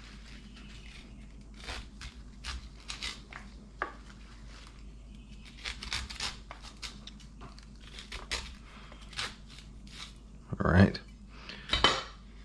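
Knife slicing kernels off an ear of corn held in a wooden bowl: a run of short scraping cuts, a few each second. Near the end come two louder knocks.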